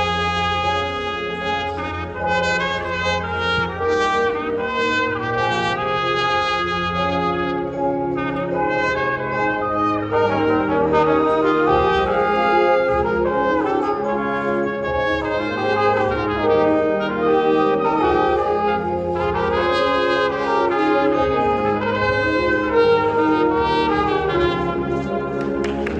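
High school indoor winds ensemble playing, led by brass such as trumpets and trombones: full sustained chords with moving melodic lines, at a steady, fairly loud level.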